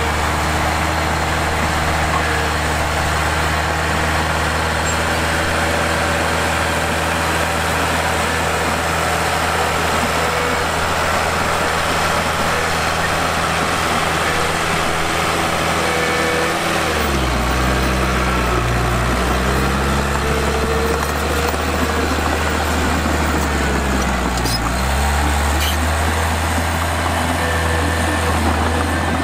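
Heavy-equipment diesel engine running steadily, its engine speed dipping and climbing back twice, about two-thirds of the way in and again shortly after.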